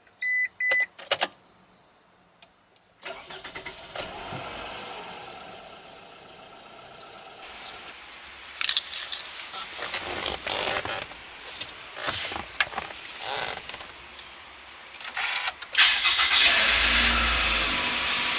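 Toyota Alphard's accessory-on chime, a few short electronic beeps in the first second, then interior clicks and cabin noise. Near the end a louder rush with a low rumble, as the engine starts.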